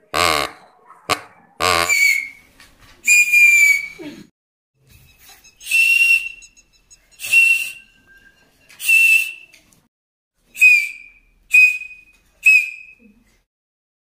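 Homemade whistles blown by mouth: a few buzzy, reed-like honks at first, then about six short, breathy whistle blasts at one high pitch, each a second or less.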